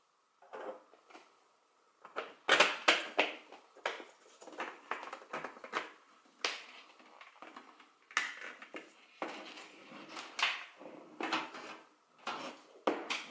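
3D-printed plastic front-panel parts being handled and fitted together: irregular clicks, knocks and rattles of hard plastic.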